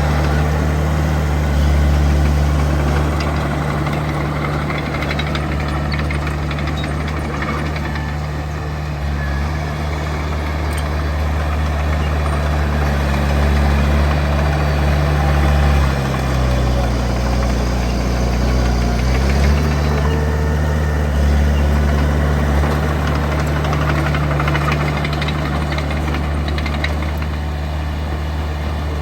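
Heavy diesel engine of earthmoving machinery running steadily; its pitch drops for a few seconds past the middle, then rises back.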